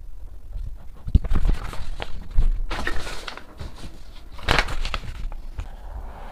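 Sheets of paper rustling and sliding as they are handled and moved on a desk, with light taps and scratches of a marker pen on paper. The loudest rustles come about three seconds in and again about four and a half seconds in.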